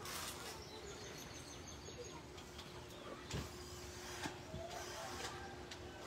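Aluminium telescoping ladder being climbed: a few faint knocks and clicks of feet and hands on its rungs over a quiet background with a faint steady hum.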